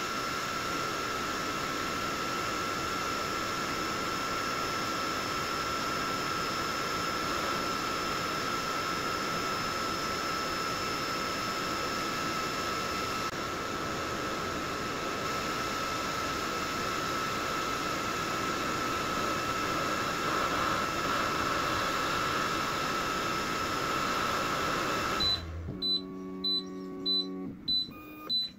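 xTool S1 40 W laser cutter running, its fans giving a steady whining hum that cuts off suddenly near the end. A fast, high-pitched alarm beeping follows at about two to three beeps a second.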